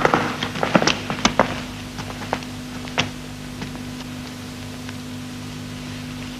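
Footsteps and taps on a hard floor as a group walks in, the taps thinning out after about a second and a half to a few single knocks, over a steady low hum.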